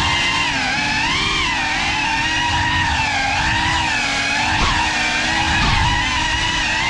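GEPRC CineLog 35 cinewhoop's brushless motors and ducted propellers whining, the pitch rising and falling over and over as the throttle changes.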